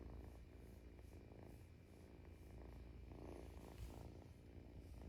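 A cat purring faintly: a low, steady rumble with a soft pulsing rhythm.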